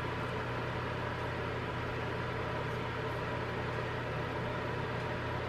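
Steady low hum with a faint even hiss, unchanging throughout, with no distinct handling sounds.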